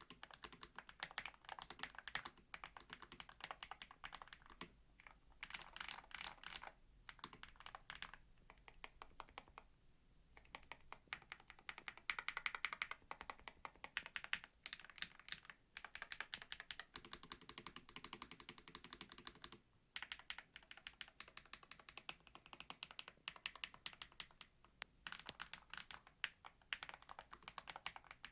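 Typing on a Hall-effect mechanical keyboard with Gateron magnetic switches: rapid runs of key clacks broken by short pauses.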